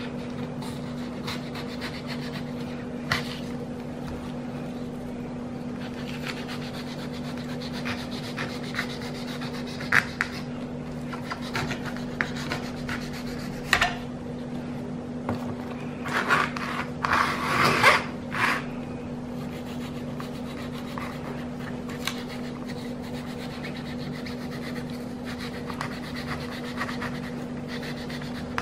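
Kitchen knife cutting and scraping the skin off a prickly pear pad on a plastic cutting board: scattered short scrapes and clicks, with a louder run of scraping about two-thirds of the way through. A steady low hum runs underneath.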